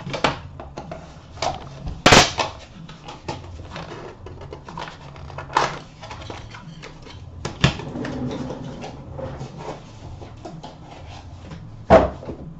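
A small cardboard box and a card in a plastic holder being handled: rustling and scraping broken by several sharp knocks and clicks, the loudest about two seconds in and just before the end.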